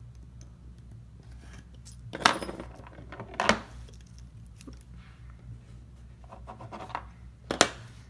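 Craft knife scratching through sticker paper and the paper sheet being handled on a tabletop, with three sharp clicks of small metal things knocking on the table, the last near the end.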